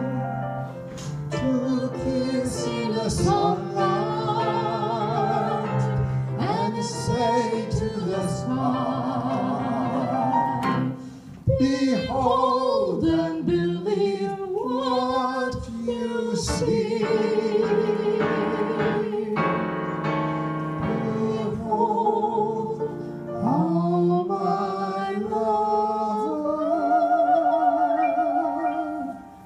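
A woman and a man singing a duet, with long held notes and vibrato, their two voices sometimes sounding together at different pitches, over piano accompaniment. The music breaks off briefly about eleven seconds in.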